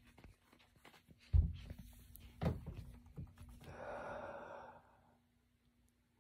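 Bumps and rubbing of a phone being handled and repositioned, with a heavy thump a little over a second in, then a man's long sigh about four seconds in.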